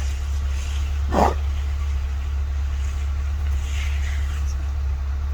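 Steady low hum of a vehicle's engine, with one short, sharp sound a little over a second in.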